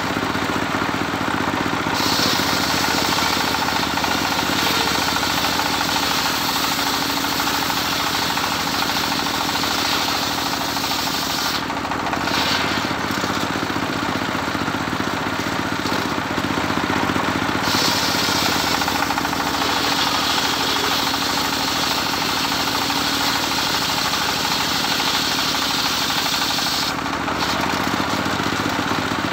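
Homemade engine-driven circular saw bench ripping medang timber into beams. The engine runs steadily throughout, and the blade's cutting noise in the wood comes in long passes: it starts about two seconds in, eases briefly around twelve seconds and again around eighteen, and stops a couple of seconds before the end.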